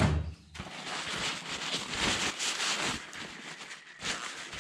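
Aerosol brake cleaner hissing as it is sprayed onto a roller rocker to clean it: a short thump at the start, then one long spray of about two and a half seconds and a shorter second burst near the end.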